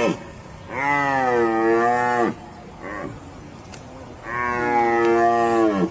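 Long, moaning calls from a large animal: the tail of one at the start, then two more about a second and a half each, each dropping in pitch at its end.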